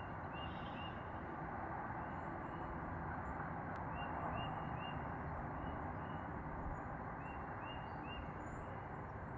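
Small birds chirping in several short clusters of quick notes, over a steady background hiss.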